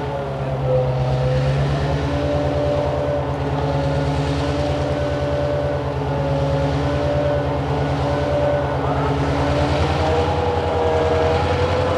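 Heavy diesel engine running steadily at constant speed, with a fainter whine above it that wavers slightly in pitch.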